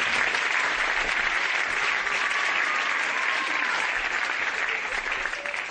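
Studio audience applauding, dense steady clapping that eases slightly near the end.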